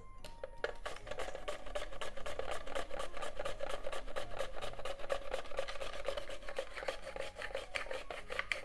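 Half an onion pushed rapidly back and forth across the blade of a plastic mandoline slicer, cutting paper-thin slices: a quick, even rasping, stroke after stroke.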